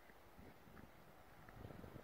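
Faint, soft crunches of a Samoyed's paws and a ball pushed through snow, a little louder near the end.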